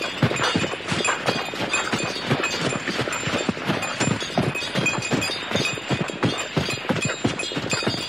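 Horse pulling a sleigh, its hooves clopping in a dense, irregular stream of knocks, several a second, that keeps up without a break.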